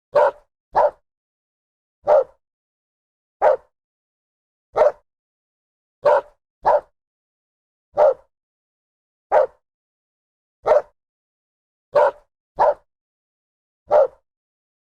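A dog barking in short single barks roughly every second and a half, some coming in quick pairs, with dead silence between the barks.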